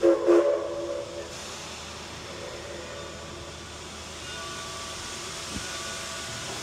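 Steam locomotive whistle blowing one short chime blast of several notes together, cut off after about a second, then a steady hiss of steam from the working engine.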